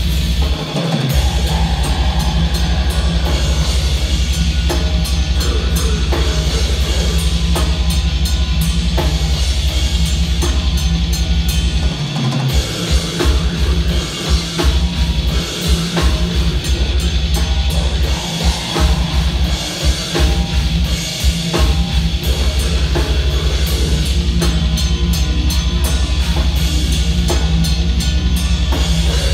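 Death metal band playing live: heavily distorted guitar and bass over a pounding drum kit. Through the middle the low end cuts out again and again in short stop-start hits before the full band runs on.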